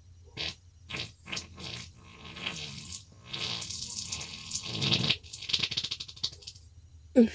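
A person farting: a few short bursts, then a long fluttering, sputtering stretch made of many quick pulses, and a brief loud sound rising in pitch near the end.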